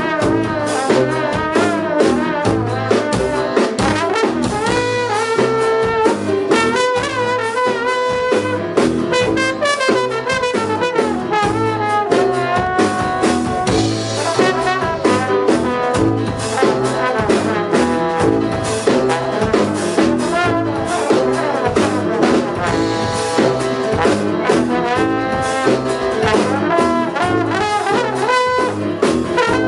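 Big band playing a contemporary jazz-fusion piece, led by the brass section of trumpets and trombones over drums, bass and guitar. There are held horn chords and busy drumming throughout.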